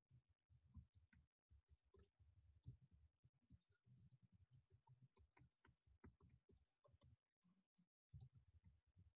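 Faint typing on a computer keyboard: many soft key clicks in quick succession.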